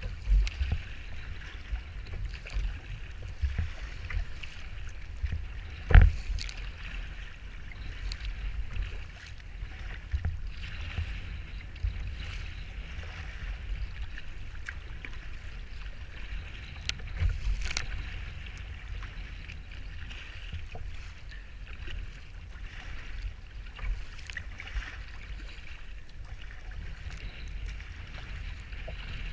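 Strong wind buffeting the microphone over the hiss and slap of choppy sea water against a sea kayak's hull, with a sharp knock about six seconds in, the loudest sound.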